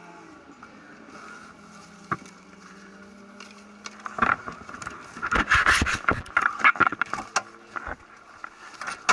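A faint steady low hum, then from about four seconds in a run of loud knocks, scrapes and rubbing right at the microphone as a gloved hand handles the camera and moves it.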